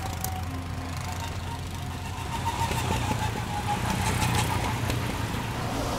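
Go-kart engine running at a steady speed: a continuous low drone with a fainter whine above it that rises and falls slightly.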